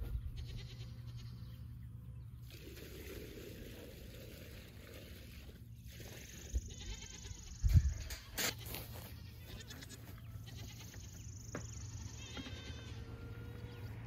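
Nigerian Dwarf goats bleating now and then, hungry goats calling for their feed. A couple of sharp thumps about eight seconds in.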